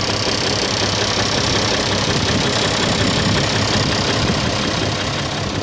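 Isuzu 6WF1 six-cylinder diesel engine running steadily, close up, on a truck being checked for low power and hard starting from its high-pressure fuel pump.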